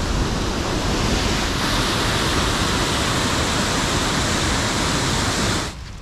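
Steady rush of falling water from a river weir or waterfall. It drops away abruptly shortly before the end.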